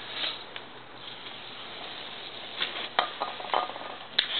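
Scattered clicks and light rattles from working at a Kawasaki ZX-10R's rear drive chain with a chain-lube spray can, starting about two and a half seconds in, over a steady background hiss.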